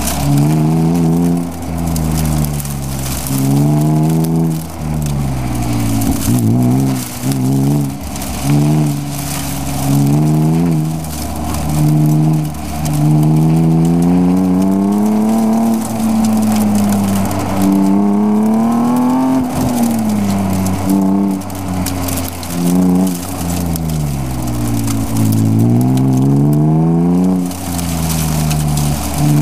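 BMW E36 M3's straight-six engine heard from inside the cabin, driven hard. It rises in pitch again and again under acceleration and falls back as the driver lifts off and brakes between corners.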